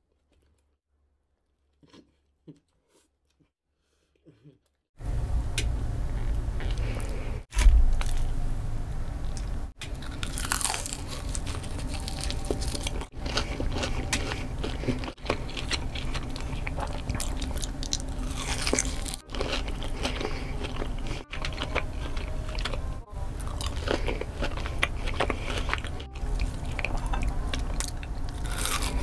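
Close-miked eating: loud crunching bites and chewing from a run of short spliced clips, with a brief dropout at each splice. The first few seconds are nearly silent apart from a few faint clicks, then the eating sounds start abruptly about five seconds in.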